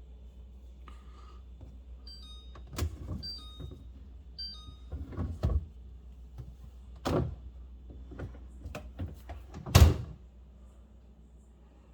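Refrigerator doors being handled: a series of knocks and thuds from door panels and fittings, the loudest near the end. A few short electronic beeps sound in the first half.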